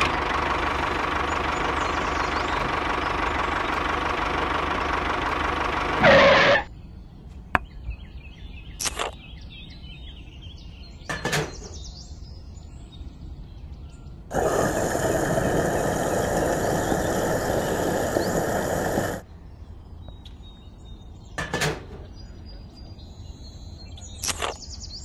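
A tractor engine runs steadily for about six seconds and stops abruptly. Light clicks and taps follow, then a second steady mechanical sound lasting about five seconds, then more scattered clicks.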